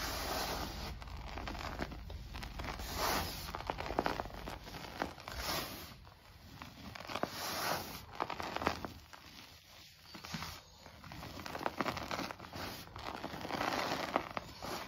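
Hands squeezing and crumbling clumps of dry purple powder and letting it pour back onto the heap: irregular crunchy, crackling rustles as the clumps break and the powder falls, with a brief lull about two-thirds of the way in.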